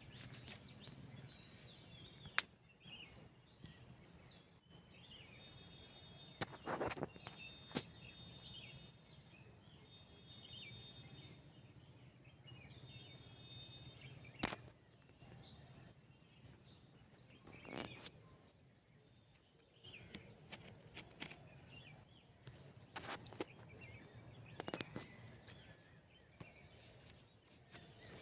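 Faint outdoor nature ambience: birds calling with chirps and short trills, over a steady, rapidly pulsing high chirr like insects. A few sharp clicks or knocks stand out, the loudest about 7 seconds in.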